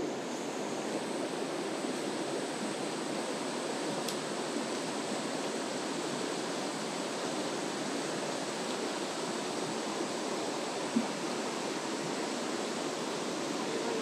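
Mountain stream rushing over rocks and small riffles, a steady, even rush of water, with a single light click about eleven seconds in.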